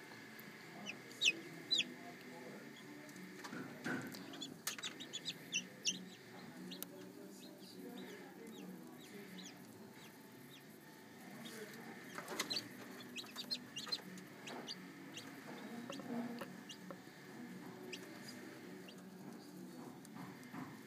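Chicken chicks peeping in short, high calls, two loud peeps about a second and two seconds in, then scattered runs of peeps around four to six seconds and again around twelve to fourteen seconds. A steady low hum runs underneath.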